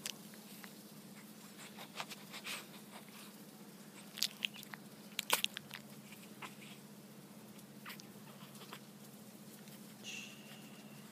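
Boston Terrier puppy moving about on a fleece blanket: scattered small clicks and rustles over a steady low hum, with a brief high tone near the end.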